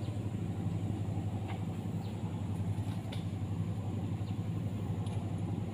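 Steady low hum of a motor engine running, holding an even pitch throughout, with a few faint ticks over it.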